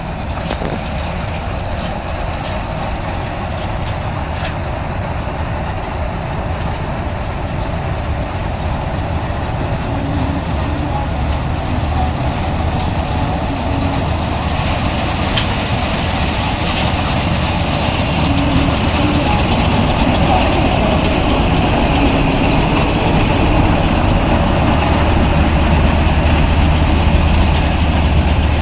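Heavy farm machinery engine running steadily with a deep hum, growing gradually louder as it comes closer.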